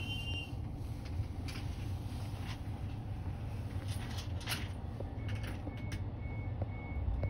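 Steady low outdoor rumble with a few faint clicks. About five seconds in, a high electronic beep starts repeating about twice a second.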